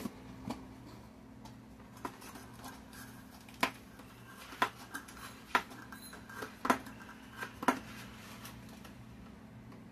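Brown sugar being measured out: light clicks and knocks of a measuring cup and spoon, about one a second, with a low steady hum underneath.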